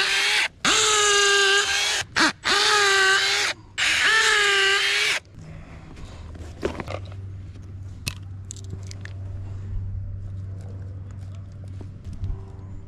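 Cordless drill boring injection holes into a tree trunk near its base: four whining runs of about a second each, the motor pitch rising as the trigger is squeezed and falling as it is let go. It is followed by quieter clicks and handling sounds.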